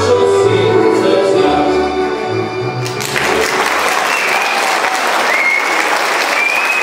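A song with singing over an instrumental backing ends abruptly about three seconds in, and audience applause takes over.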